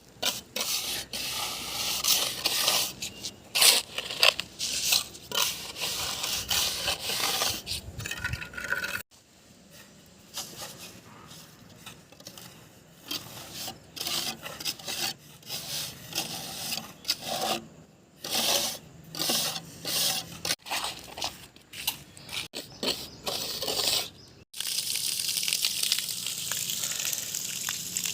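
Repeated scraping and rubbing strokes on a hard surface, in several short stretches that start and stop abruptly. Near the end a steadier hiss takes over.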